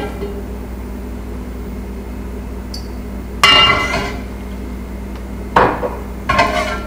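Heritage Steel 5-quart stainless-steel sauté pan knocking and scraping on the gas stove's grate as it is shifted and set down. The loudest clank comes about three and a half seconds in, with two shorter knocks near the end, over a steady background hum.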